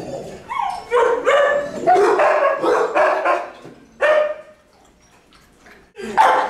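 Shelter dogs barking in a quick, repeated run for about four seconds. After a short lull, more barks come near the end.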